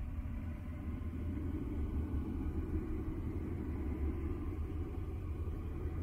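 Deep, steady rumbling ambient noise of the kind used for sleep and space-drone soundscapes. A low rushing layer swells in just above the rumble at the start, with faint steady tones higher up and nothing high-pitched.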